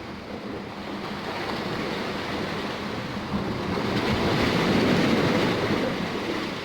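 Sea surf washing in, one wave swelling and breaking about four seconds in, then easing.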